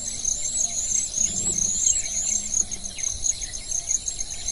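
Insects chirping in a steady, high-pitched run of quick rising-and-falling notes, about three a second.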